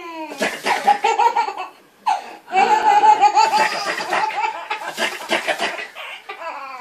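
Baby belly-laughing in repeated high-pitched bursts, breaking off briefly about two seconds in, then a long unbroken run of laughter.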